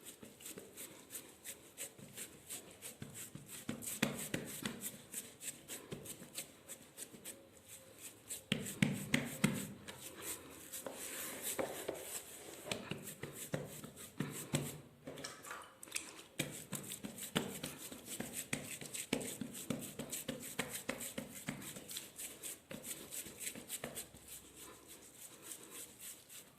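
Hands working and patting a barley dough, with a dense run of soft irregular pats and slaps that grow louder in a couple of spells.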